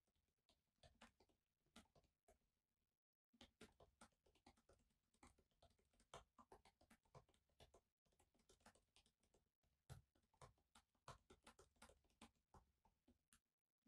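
Faint typing on a laptop keyboard: quick, irregular keystroke clicks, with a brief pause about three seconds in.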